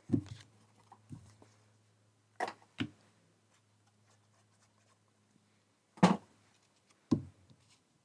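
Card pieces and hands handled on a glass craft mat: about six light taps and knocks as squares of card are picked up and set down, a close pair about two and a half seconds in and the loudest about six seconds in.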